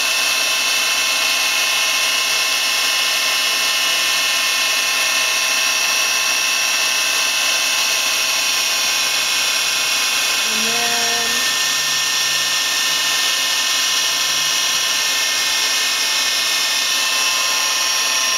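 1999 Star SV-20 CNC Swiss lathe running under power, its spindles giving a steady high-pitched whine made of several tones held level. About ten seconds in, a short lower whine steps in pitch as an axis moves.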